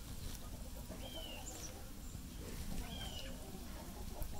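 Faint wild bird calls: two short, high notes about two seconds apart, over low background noise.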